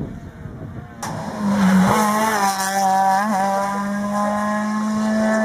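A rally car's engine held at high revs, its pitch nearly level as it drives through the bends, with a brief wobble about three seconds in. It comes in sharply about a second in, after a quieter background.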